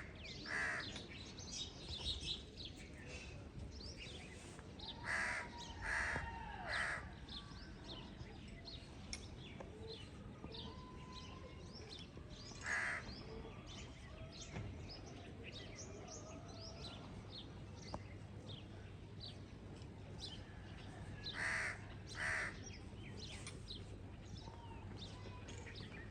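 Morning birdsong: many small birds chirping steadily, with loud harsh calls breaking in now and then, singly or in runs of two or three.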